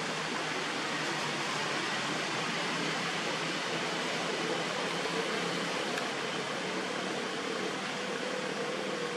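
Steady, even hiss of background noise with no distinct events; a faint low hum comes in about halfway through.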